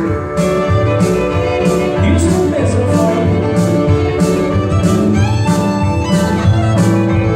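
Live country band music: fiddle and guitars over a steady drum beat, with a few sliding notes.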